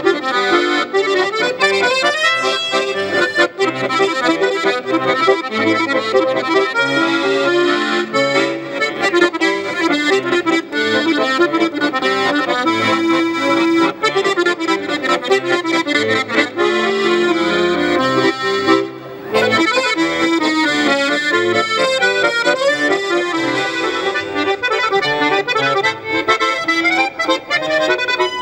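Solo chromatic button accordion playing a brisk melody of many quick notes over bass, with a short break a little past two-thirds of the way through before the playing goes on.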